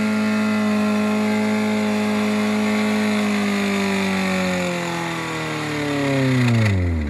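Nissan Versa's four-cylinder engine screaming at high revs, deliberately held there in drive, then from about three seconds in its pitch sags and winds down ever faster as the engine seizes and stops.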